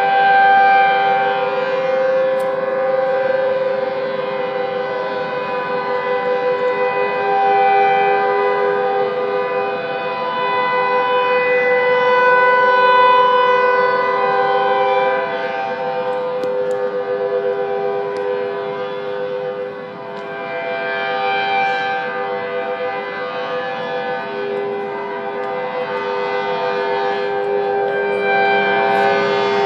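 Several outdoor warning sirens sounding together, their steady tones overlapping into a dissonant chord. The blend swells and fades slowly every few seconds.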